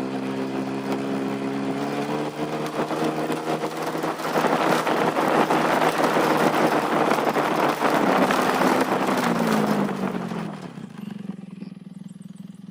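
A vehicle engine speeding up with a rising pitch, then running steadily under a loud rushing noise, before the pitch falls and it settles to a quieter idle near the end.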